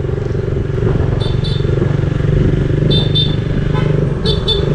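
Motorcycle engine running steadily while riding at cruising speed, heard from the rider's seat. Three pairs of short, high chirps sound over it, about a second and a half apart.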